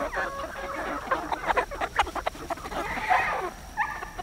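A flock of Red Ranger broiler chickens (Murray's Big Red Broilers) clucking and calling in quick, overlapping short notes, with a louder, noisier flurry about three seconds in.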